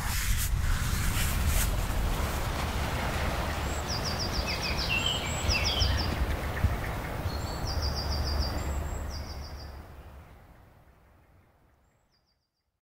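Nature ambience: a steady rushing background noise with a low rumble, with several short, rapid trills of a small songbird between about four and nine seconds in. It all fades out about ten seconds in.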